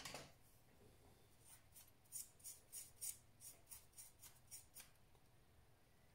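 A faint series of about ten light, short scratching strokes, roughly three a second, ending near the end of the first five seconds.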